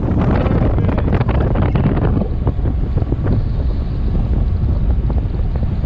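Heavy wind buffeting the microphone on a boat under way at speed, over the 1999 Evinrude FICHT 150 two-stroke outboard running and water rushing past.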